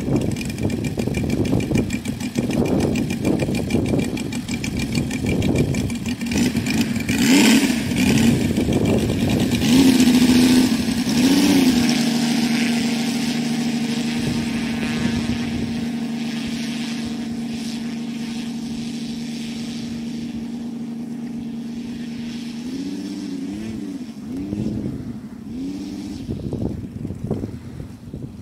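Saito FG-84 three-cylinder four-stroke radial petrol engine of a large RC scale model plane, running and revved up and down unevenly at first with a loud burst about seven seconds in. It then settles to a steady, slowly fading note as the plane taxis away, and is blipped up and down several times near the end.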